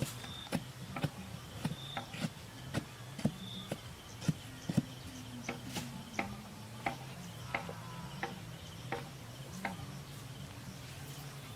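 A steady series of sharp knocks, about one to two a second, like a tool striking wood or bamboo, with a faint high insect chirp repeating every second or so.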